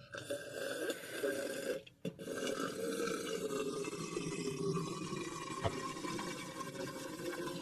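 Gurgling, bubbling sound of a bong hit being drawn: one long pull with a short break about two seconds in.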